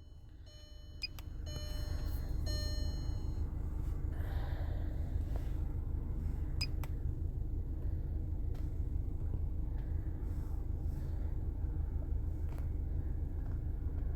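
A quick series of short electronic beeps in the first few seconds, then a steady low rumble of wind on the microphone.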